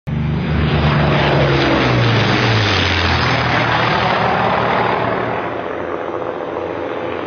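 Propeller-airplane fly-by sound effect: an engine drone whose pitch drops over the first few seconds as it passes, then fades.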